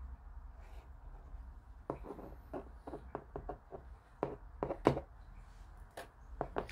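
Irregular small clicks and taps, about a dozen starting some two seconds in, of plastic model-kit parts and tools being handled on a work surface.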